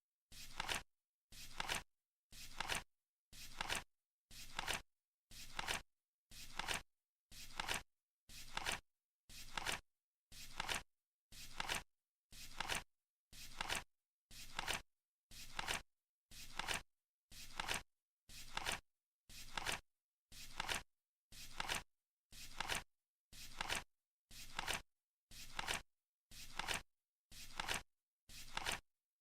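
Flip clock counting seconds, a flap turning about once a second. Each flip is a short rustle that swells and cuts off sharply.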